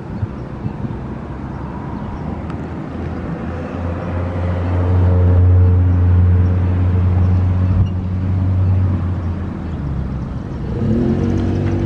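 Federal Sign & Signal STH-10A outdoor warning siren sounding a low, steady growl that swells louder about four seconds in and eases a little near the end, where a rising tone joins it.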